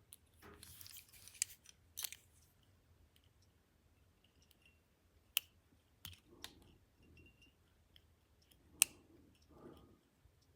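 Lock picking a Brinks 164-38011 padlock: faint scraping and a scattering of sharp clicks as the pick and tension tool work the pins, with a few short high ticks.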